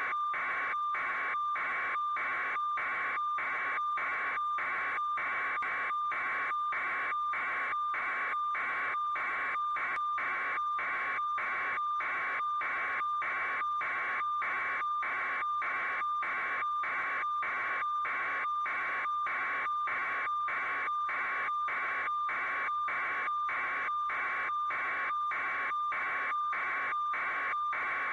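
Electronic static-like noise pulsing evenly about twice a second, with a steady whistle-like tone running through it.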